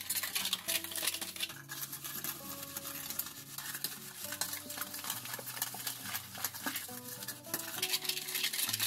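Metal pooja plate being scrubbed rapidly by hand with a gritty mud paste, a continuous scratchy rubbing. Soft background music with held notes plays under it.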